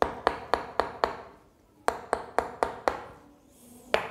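Hand-held chiropractic adjusting tool striking the leg in quick runs of sharp clicks, about four a second, with short pauses between the runs.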